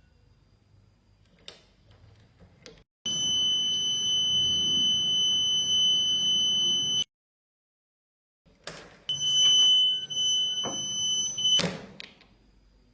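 Homemade door alarm's buzzer sounding a steady high-pitched tone for about four seconds, then, after a short break, again for about two and a half seconds. Clicks and knocks come before and after each sounding.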